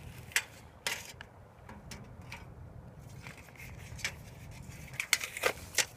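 A tape measure being handled: scattered light clicks and scrapes from its case and blade, with a quick cluster of clicks about five seconds in.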